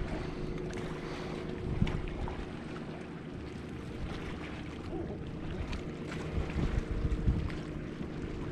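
Steady hum of a bass boat's electric trolling motor, with gusts of wind rumbling on the microphone.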